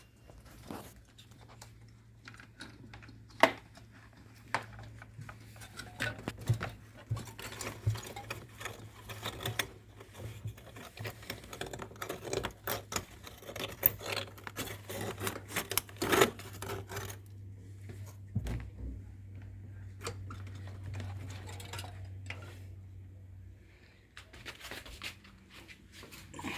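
Irregular clicks, taps and light clatter from tools and parts being handled during refrigerator repair work, over a low steady hum that stops near the end.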